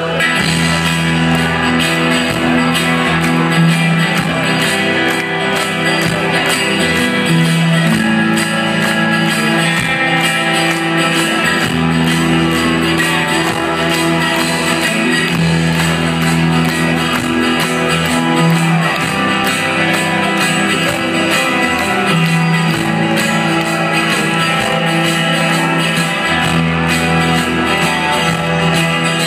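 Live rock band playing through a concert PA: electric guitars and bass holding chords, over a steady drum beat.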